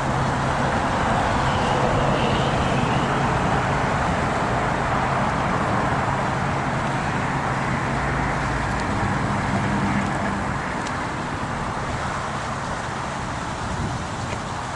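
Steady road traffic noise, a continuous rush of passing highway traffic with a low hum under it, easing slightly about ten seconds in.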